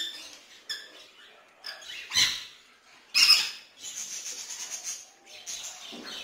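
Parrots calling: several short, harsh squawks, the loudest about three seconds in, followed by about a second of rapid chattering.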